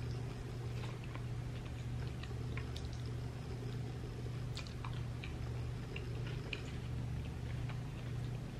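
A person chewing a mouthful of samosa chaat eaten by hand, close to the microphone: soft chewing with faint scattered clicks throughout, over a steady low hum.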